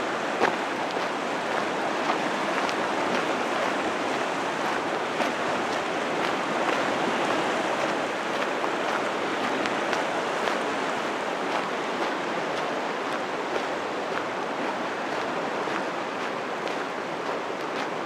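Steady rush of the Gunnison River's water flowing through the canyon, with faint scattered ticks and one sharp click about half a second in.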